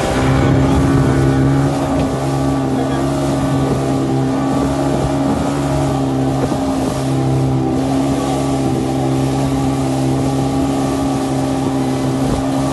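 Outboard motor of an open wooden boat running at speed, a steady unchanging drone, with water rushing past the hull and wind on the microphone.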